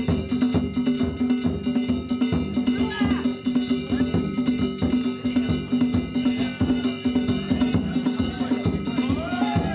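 Danjiri festival music: drums and small hand gongs struck in a fast, steady rhythm as the float is hauled, the gongs ringing on, with a few short shouts from the haulers.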